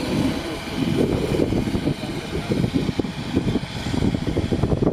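Low, unsteady outdoor rumble, with a faint steady hum higher up.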